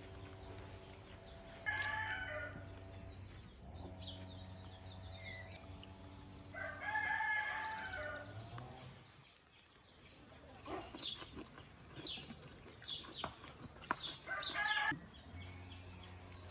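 Rooster crowing three times, the longest crow about seven seconds in, with short high bird chirps in between.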